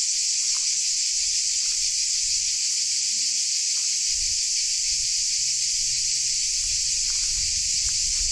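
A dense chorus of cicadas: a loud, unbroken, high shrill made up of countless insects calling at once.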